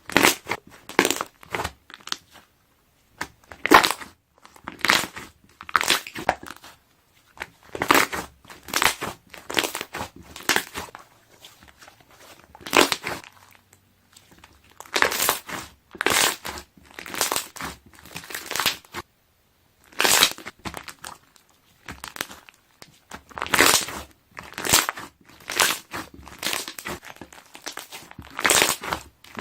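Slime being pressed and squeezed by hand, its trapped air bubbles popping in quick crackly bursts, with short pauses between squeezes.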